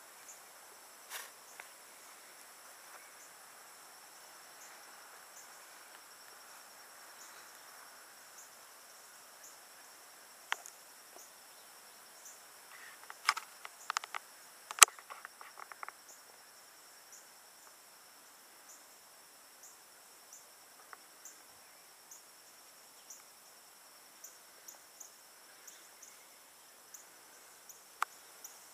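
Steady high-pitched insect chorus with an even pulsing, broken by a few scattered clicks and a short run of sharp clicks about halfway through.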